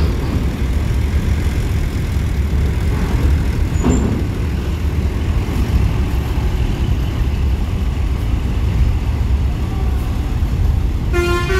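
Tour coach's diesel engine running as the bus drives slowly up a ferry loading ramp: a steady low rumble. Music starts near the end.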